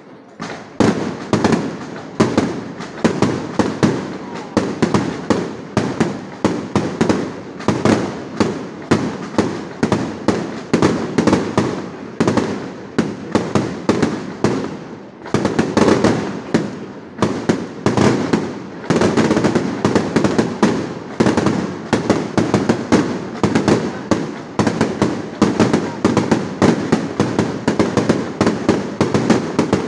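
Aerial fireworks display: a dense, continuous barrage of shell bursts and bangs, several a second, easing off briefly about halfway before building again.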